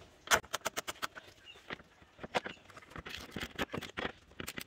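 Ratchet with a 10 mm socket clicking in quick runs of sharp clicks as a nut is undone, with sparser single clicks between the runs.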